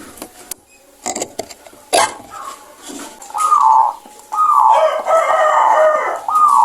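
Zebra dove (local perkutut) cooing: a run of short falling notes starting about three seconds in, repeating roughly once a second, with a longer, fuller call in the middle. A few sharp clicks come before the cooing.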